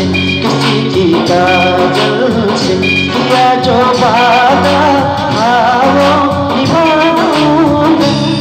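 Small band playing live: a male voice singing into a handheld microphone over electric guitar, bass guitar and keyboard. The backing keeps a steady chord rhythm, with a wavering sung line over it from about halfway through.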